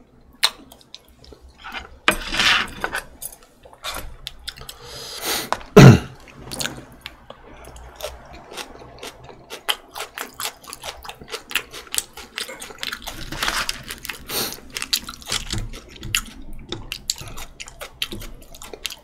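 A person chewing food close to the microphone, with many small wet mouth clicks and crunches, and one louder thump about six seconds in.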